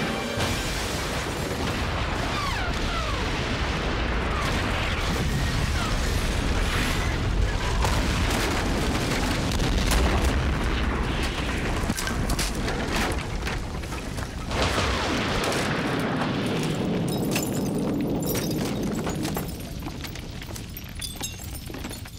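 Sound effects of gas cylinders exploding and a wooden shed blowing apart: a long, deep booming blast, loudest about ten seconds in, with another sudden boom near fifteen seconds. Then crackling of fire and falling debris as it dies down near the end.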